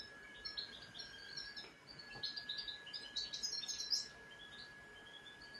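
Small bird chirping and singing in short high notes, busiest in the middle and easing off near the end, over a faint steady high whine.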